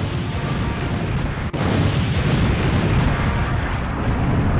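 Cartoon explosions: a heavy blast going off, then a second one about one and a half seconds in that keeps going.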